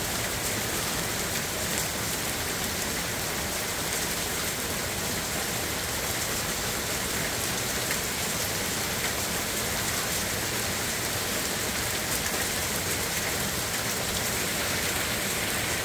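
Heavy rain mixed with small hail falling steadily, an even, unbroken hiss of drops pelting the yard.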